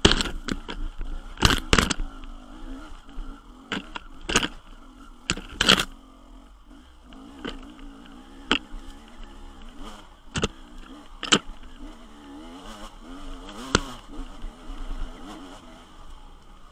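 Off-road motorcycle engine running at shifting revs on a rough woodland trail, with many sharp knocks as branches and the stony ground strike the bike and camera. The knocks are thickest in the first six seconds and sparser after.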